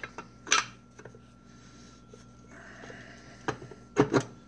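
Small metal clicks and knocks from a manual transmission's shifter parts being worked by hand while the detent ball and spring are fitted into the housing: one sharp click about half a second in and a louder double knock near the end.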